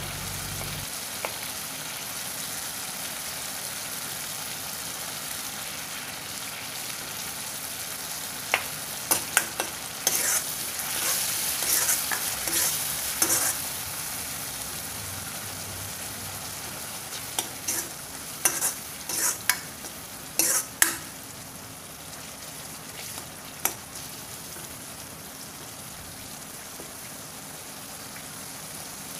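Onion-tomato masala sizzling in an iron kadhai while a spoon stirs it. In two spells near the middle, and once more later, there are sharp strokes of the spoon scraping the pan.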